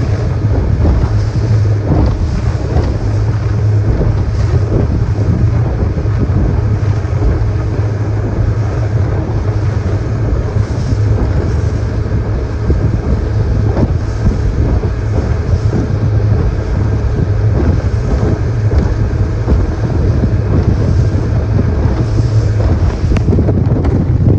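2013 Mercury 90 hp outboard motor running steadily at a constant pitch, with wind noise on the microphone.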